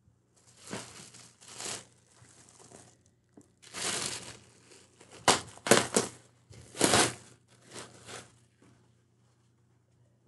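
Plastic packaging bag crinkling and rustling in a series of short bursts as it is handled, loudest through the middle.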